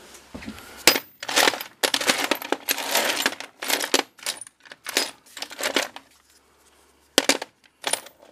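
Chrome steel sockets clattering and clinking against each other as a hand rummages through a tool-chest drawer, in a busy run of rattles for several seconds, then a pause and two more single clinks near the end.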